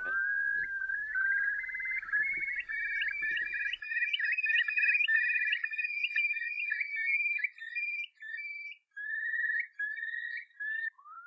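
A tune whistled by a person: a melody of held notes joined by slides, wavering on a couple of notes and broken by short pauses later on.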